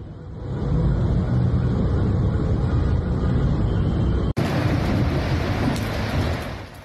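Muddy floodwater rushing through a street, a steady rushing noise with no distinct events. About four seconds in it cuts abruptly to a hissier, brighter stretch of water and rain noise from another recording.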